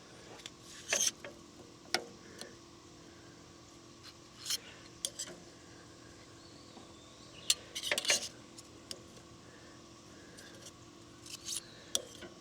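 Small metal shims clinking and clicking against each other and on metal as they are picked out and stacked by hand: scattered light taps, a few in quick clusters about a second, eight seconds and eleven seconds in.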